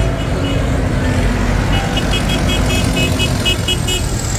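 Diesel tractor engines running as tractors drive past at close range, a steady low rumble. About two seconds in, a quick run of short high beeps sounds over it.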